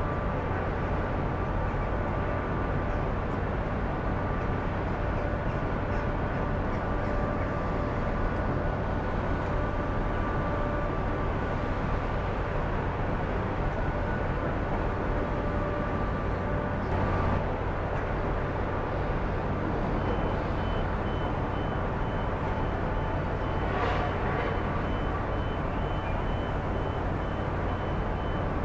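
Steady low drone of the moored ferry's machinery running at the berth, with a couple of knocks partway through. From about two-thirds of the way in, a reversing alarm beeps at an even pace.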